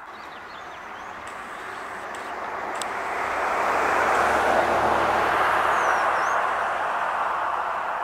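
A vehicle going past, its rushing road noise swelling over a couple of seconds, peaking about halfway through and easing slowly. A brief faint bird chirp near the end.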